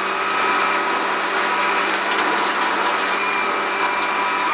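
Rally car engine at full throttle in a high gear, holding a steady pitch as the car runs flat out on gravel. Tyre and gravel noise runs underneath, heard from inside the cabin.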